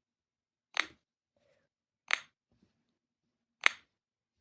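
Three short, sharp clicks, about one and a half seconds apart, as jigsaw puzzle pieces are picked up and placed.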